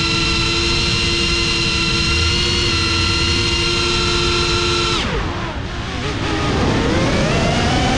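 FPV cinewhoop drone's brushless motors and propellers whining at a steady pitch. About five seconds in, the pitch drops sharply as the throttle is cut for a dive, then climbs back up near the end as the throttle is brought up again.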